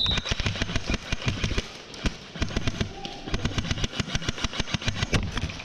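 Airsoft guns firing in rapid volleys of sharp shots, several a second and from more than one gun at once, as the players open up at the break of a speed QB round.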